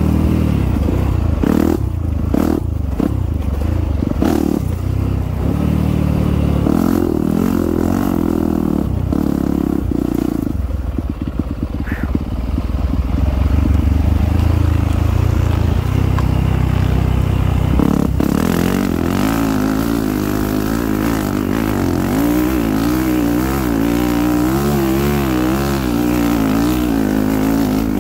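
Dirt bike engine revving up and dropping back as it is ridden hard through the gears, with scattered clatter and knocks from the bike over rough ground. From about 18 seconds in it holds a steadier, higher note that wavers up and down.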